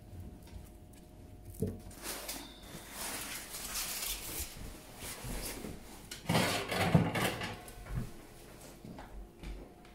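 Handling noises in a kitchen: rustling, scattered knocks, and a louder clatter about six to seven seconds in.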